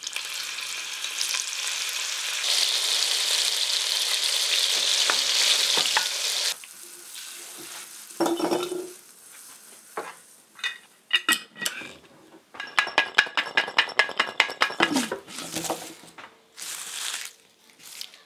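Olive oil sizzling in a hot enamelled cast-iron Dutch oven for about six seconds. After it stops, a few sharp knocks follow, then a fast clicking rattle lasting a couple of seconds: garlic cloves shaken in a glass jar to loosen their skins.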